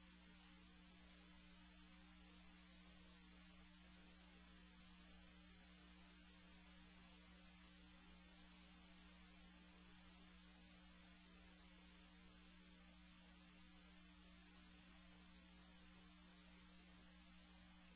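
Near silence: a faint, steady electrical hum with light hiss, the recording's noise floor.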